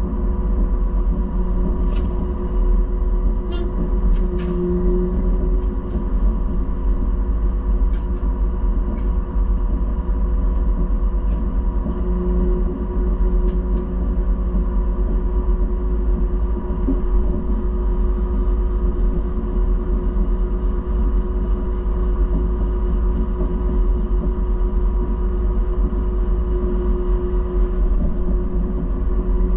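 Combine harvester running steadily under load while picking soybeans: a constant machine drone with a strong low rumble and a few faint ticks in the first few seconds.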